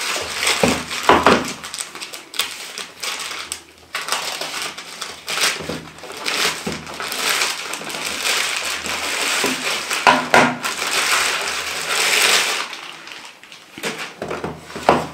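Plastic courier mailer crinkling and tearing as it is slit open with a utility knife and pulled off a cardboard box, with a few sharp knocks and scrapes among the rustling.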